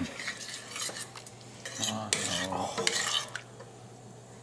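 A metal spoon stirring and scraping through thick chicken vindaloo curry in a stainless steel pot, with small clinks of the spoon against the pot.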